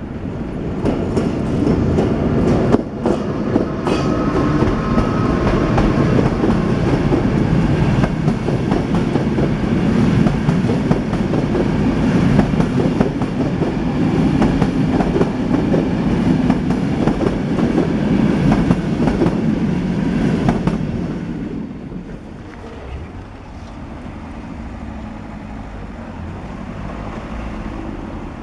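A train passing over the level crossing, its wheels running loudly over the rails with many quick clacks. The rumble fades away about 21 seconds in, leaving a quieter low hum.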